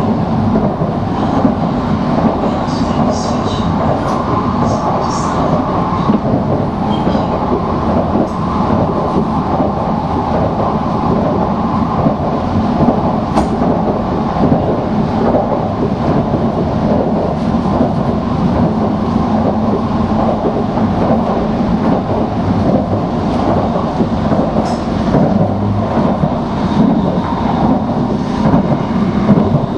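Tokaido Shinkansen Nozomi bullet train running at speed, heard from inside the passenger cabin: a steady, dense rumble with a hum, and a few faint high ticks a few seconds in.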